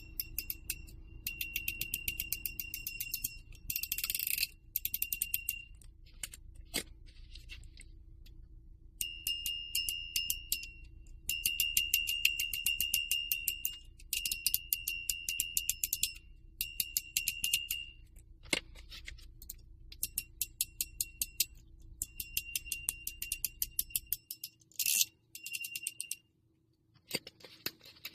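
EDC fidget spinner spun again and again, each spin a short burst of rapid clicking with a high ringing tone, fading out after one to three seconds.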